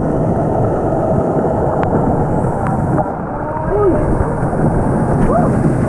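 Steady rush of fast river water around a kayak, with wind noise on the microphone.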